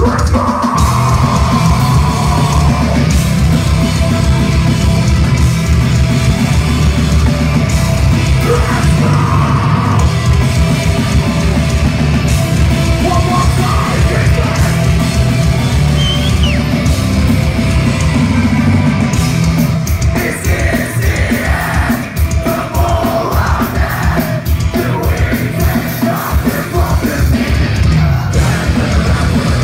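Live metal band playing at full volume: distorted electric guitars, bass and pounding drums, with a vocalist yelling and screaming over them. The full band crashes in right at the start.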